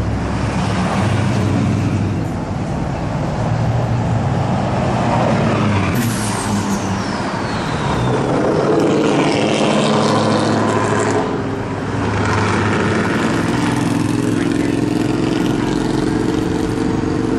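Pickup truck engines running as the trucks drive past one after another, with steady road and traffic noise. About six seconds in, a high whistle falls steadily in pitch over a couple of seconds.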